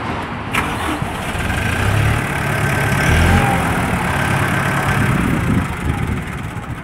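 Kubota M108S tractor's four-cylinder turbo-diesel engine running, getting louder for a few seconds in the middle and then easing off. A single sharp click comes about half a second in.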